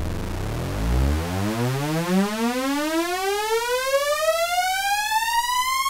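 Sylenth1 software synthesizer playing one held note whose pitch sweeps upward, a synth pitching rise driven by a pitch-modulation envelope. It starts as a low, dense tone and climbs steadily to a bright high pitch, the rise slowing as it goes.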